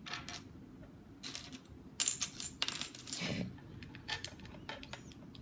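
Plastic Lego bricks clicking and clattering as pieces are handled and pressed together, a scattered run of small clicks.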